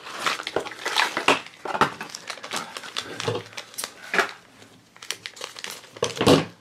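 Packaging being handled and opened: a cardboard blind box pulled apart, then a shiny black pin pouch crinkling and being cut open with scissors. The sound is a run of quick, uneven crackles and rustles.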